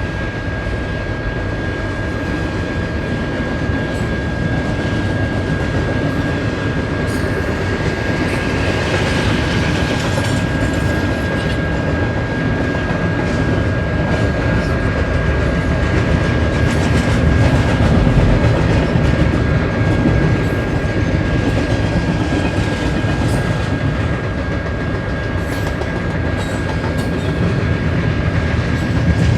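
Container freight train rolling past, a steady rumble of steel wheels on rail with faint clicks over the joints. A thin, steady high tone sits over the noise.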